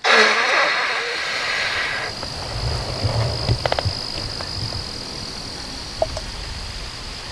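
Steady high-pitched insect chirring over a quiet outdoor background, with a rush of rustling hiss in the first two seconds and a few faint clicks about halfway through.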